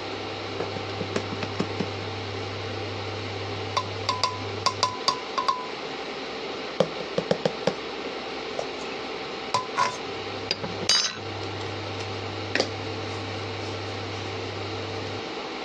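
A metal spoon scooping from a jar and clinking against containers: several clusters of short taps and brief ringing clinks over a steady low hum.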